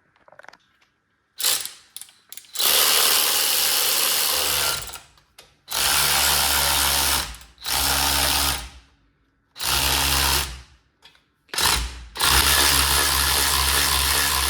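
Cordless power tool with a 16 mm socket running in about six bursts, each up to about three seconds long with short stops between, winding up a jack to lift the front wheel.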